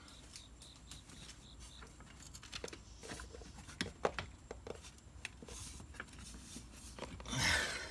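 Scattered light taps, clicks and rustles of movement and handling in a small room, with a louder rustling scrape near the end.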